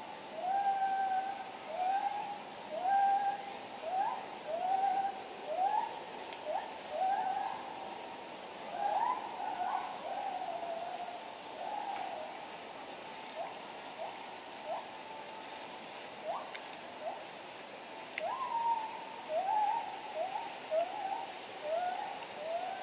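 A steady, high-pitched insect chorus, with an animal call repeated about once a second over it: a short note that rises and then holds level, coming quicker and shorter towards the end.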